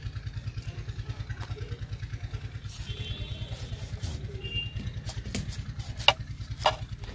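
An engine idling with a steady low putter of about ten beats a second. Near the end a knife strikes sharply twice, about half a second apart, as it chops through fish over a clay plate.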